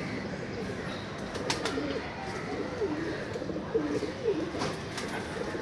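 Domestic pigeons cooing: a run of low, wavering coos through the middle, with a few short clicks.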